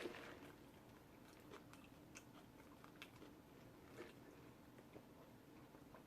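Faint, close-up chewing of a sub sandwich: soft mouth clicks and smacks about once a second over a low hiss.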